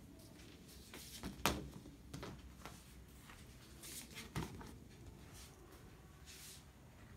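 A few soft knocks and clicks, the loudest about a second and a half in and another small cluster around four seconds, with brief rustles between them.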